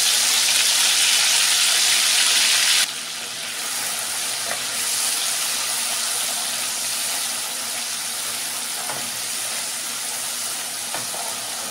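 Freshly ground green chili, ginger, garlic and coriander paste sizzling in hot oil in a kadhai as it is stirred with a wooden spoon. The sizzle is loudest for the first three seconds, then drops suddenly to a quieter steady frying hiss.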